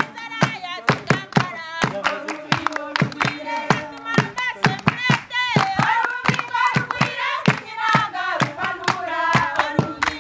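A group of women singing together while clapping their hands in a steady rhythm, about three to four claps a second.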